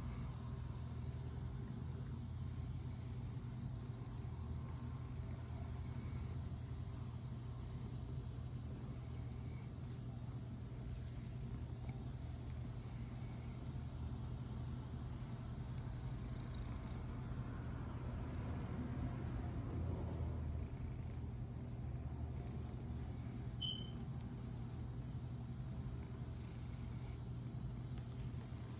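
Domestic cat purring steadily, a continuous low rumble, with a steady high-pitched drone behind it.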